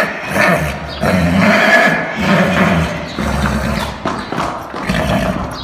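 A horse neighing, several calls in a row.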